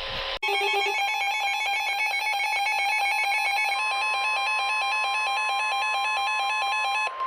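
NOAA Weather Radio alert tones: a rapid, warbling electronic data tone (the SAME header) begins, joined about halfway by a steady warning alarm tone near 1 kHz. Both stop abruptly just before a new severe thunderstorm warning is read.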